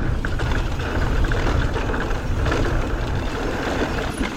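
Mountain bike riding fast down a dirt trail: wind buffeting the on-board camera's microphone over the rush of tyres on dirt, with a few light clicks and rattles from the bike.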